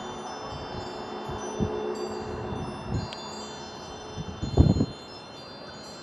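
Wind chimes ringing, many high tones overlapping and dying away, with a few low thumps, the loudest about two-thirds of the way through.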